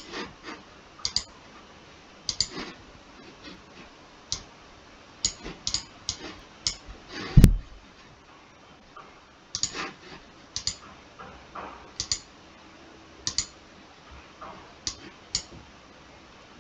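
Irregular computer mouse clicks, some in quick pairs, with one louder, deeper thump about halfway through.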